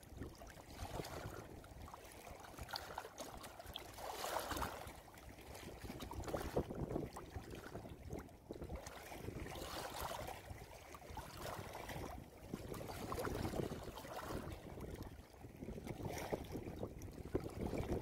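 Shallow stream of water babbling and gurgling over rocks, swelling and easing every second or two.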